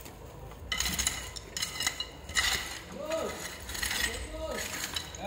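Repeated sharp clinks and scrapes of red clay tile pieces being chipped and worked by hand with a tool on gravel, starting about a second in.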